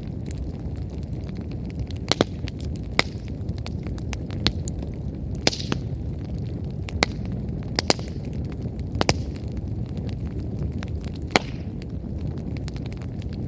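Wood bonfire burning well, with about a dozen sharp, irregular pops of burning firewood over a steady low rumble and many fainter crackles.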